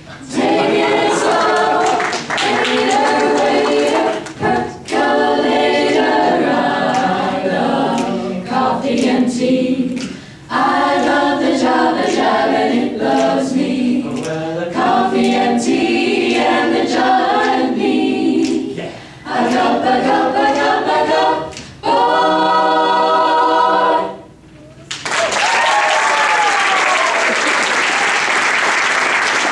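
Mixed-voice a cappella vocal group singing in harmony into microphones, ending on a long held chord about twenty-five seconds in. The audience then breaks into applause.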